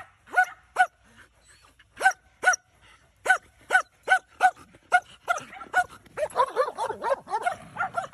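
A dog barking repeatedly in short, sharp barks, often in quick pairs. From about six seconds in the barks come faster and overlap.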